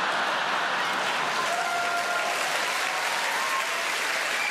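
Large theatre audience applauding steadily in response to a comedian's punchline.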